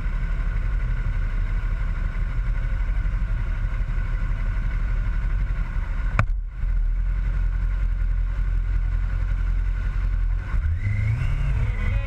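Sport motorcycle engine idling steadily, with a single sharp click about halfway through; near the end the revs rise as the bike pulls away.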